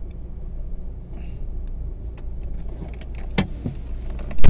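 Renault Duster diesel engine idling steadily, heard from inside the cabin. Two sharp knocks about three and a half and four and a half seconds in.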